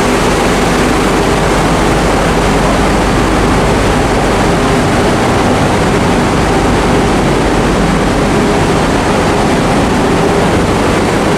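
Loud, steady machinery drone in a ferry's vehicle deck: a dense, unbroken rush of noise with faint steady hums beneath it.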